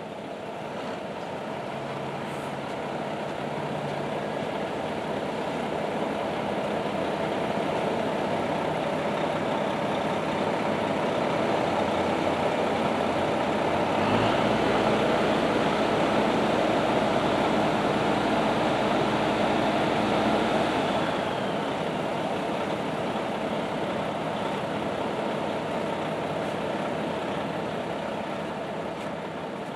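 Heavy truck running: a steady engine and road noise that swells up and then fades away. A deeper rumble joins it for several seconds in the middle.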